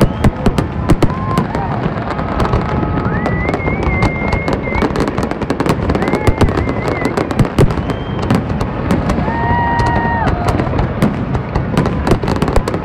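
Aerial fireworks display: a rapid, continuous run of shell bursts, sharp bangs and crackle one after another over a steady rumble.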